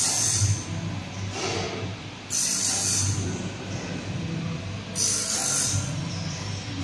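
Automatic band saw blade sharpening machine running: a steady electric motor hum with a short hissing grind about every two and a half seconds, as the grinding wheel works each tooth of the saw band in turn.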